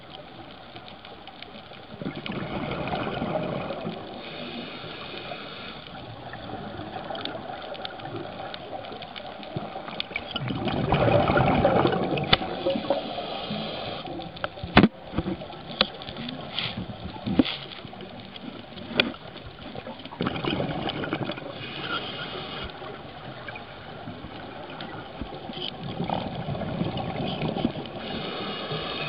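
Scuba diver's exhaled bubbles heard underwater: a rush of bubbles comes every several seconds over a steady hiss, four times in all. A few sharp clicks come in the middle.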